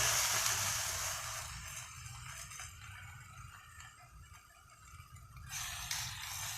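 Marinated pork belly sizzling in a hot iron pan. The sizzle fades about a second and a half in and picks up again near the end, over a steady low hum.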